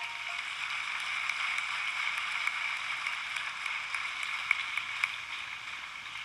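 Steady hiss-like noise, strongest in the upper middle range, with a few faint clicks, slowly fading near the end.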